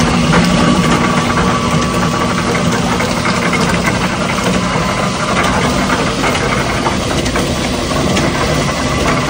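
Powered sugarcane mill (trapiche) running steadily as cane stalks are fed between its rollers to be crushed for juice: a loud, continuous mechanical drone with a steady hum.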